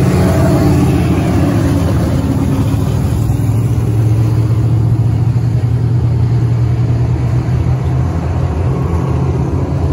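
Dirt-track race car engines running at racing speed. A car passing close is loudest at the start, its pitch dropping as it goes by. After that a steady engine drone comes from the cars further around the track.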